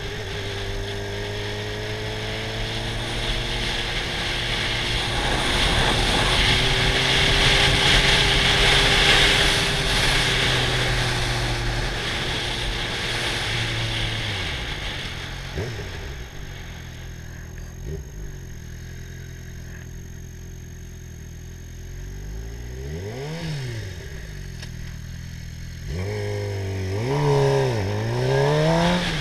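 Sport motorcycle engine running under way, with a loud rush of wind over the microphone as it speeds up, then the engine note falls as the throttle eases off for a bend. A brief rev rises and falls, and near the end several quick revs rise and fall in pitch.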